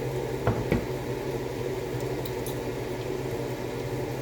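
Tomatoes and luncheon meat frying in a pan over a steady mechanical hum, with faint scattered crackles. Two quick knocks about half a second in.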